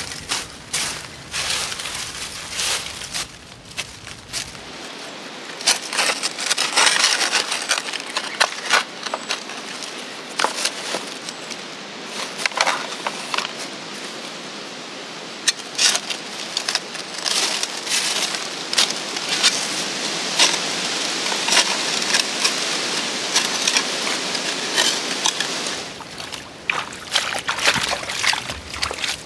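Dry leaves rustling as they are swept aside by hand, and a prospecting scoop digging creek gravel into a plastic gold pan, with many sharp clicks and crunches of stones over a steady background hiss.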